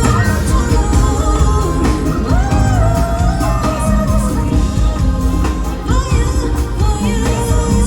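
Live K-pop concert performance: a female vocalist singing over a full backing band with steady drums and bass.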